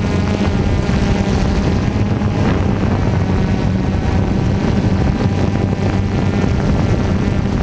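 DJI Phantom quadcopter's motors and propellers running with a steady hum, picked up by the camera on the drone, with some wind noise on the microphone.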